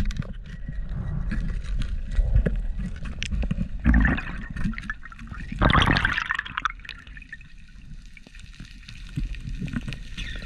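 Underwater sound of a free diver swimming: water rushing and gurgling past the submerged camera, with louder bubbly bursts about four and six seconds in. A sharp knock comes right at the start.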